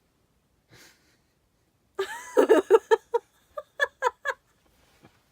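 A person laughing: a breath, then a run of short pitched laughs lasting about two seconds, spacing out as they die away.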